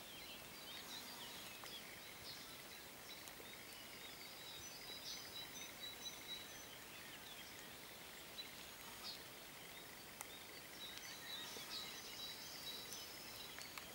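Faint woodland ambience with several birds singing: scattered short chirps and whistles, with thin high steady notes that come and go.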